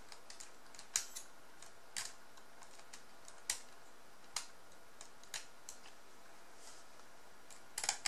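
Small, sharp metal clicks and taps, scattered irregularly about once a second, from tweezers and a small screwdriver picking at a loosened screw in a laptop's metal hard drive sled.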